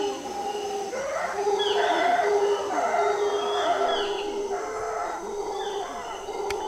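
Mantled howler monkeys howling: several deep, drawn-out calls overlap in a chorus that swells about a second and a half in. Insects drone steadily underneath.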